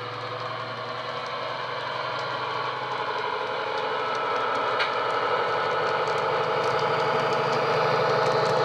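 Sound-fitted model Class 70 diesel locomotive: its sound decoder plays a diesel engine running through the model's small EM1 speaker. It gets steadily louder as the locomotive draws near, with faint ticks and one sharp click about five seconds in.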